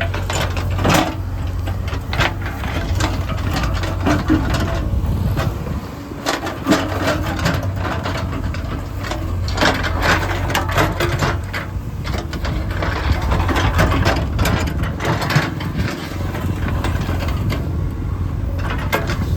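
Diesel engine of heavy construction machinery running steadily, with frequent metallic clanks and rattles over a low hum.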